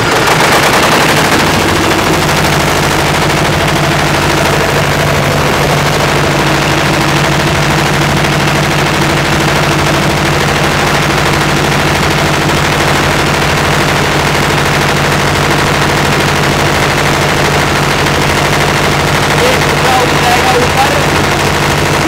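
Diesel engine of a concrete mixer-pump machine running loudly and steadily just after being started, settling to an even speed about a second in. It powers the hydraulics that raise the mixer's loading hopper.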